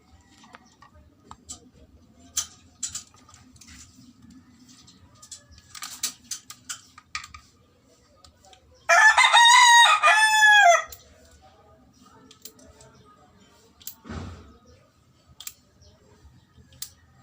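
A rooster crowing once, loud and about two seconds long, its pitch dropping at the end. Scattered light clicks and knocks sound before and after it.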